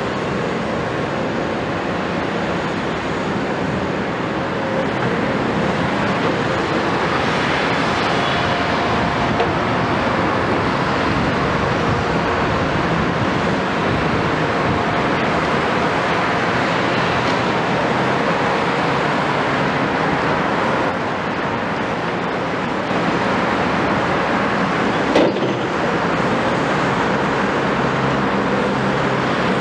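Two tracked excavators, a Cat 329E and a Hitachi 250LCN, running steadily with diesel engines and hydraulics working as they dig and swing through gravel. A single sharp clank stands out near the end.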